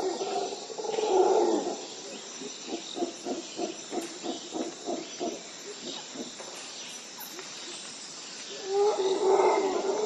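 A large animal roaring. A loud, long call about a second in is followed by a run of about a dozen short grunts, about three a second, that fade away, and another loud call comes near the end.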